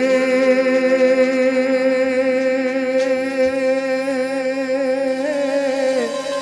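A singer holds one long sung 'he' note in a Gujarati garba song, the pitch wavering slightly. The note bends and ends near the end.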